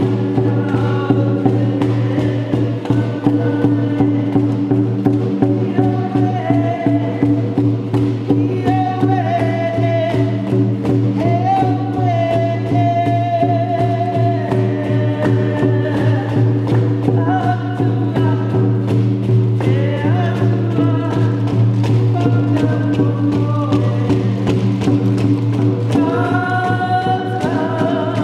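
Sami frame drum beaten in a fast, steady rhythm under a sustained low drone, with voices singing a wavering chant-like melody over it.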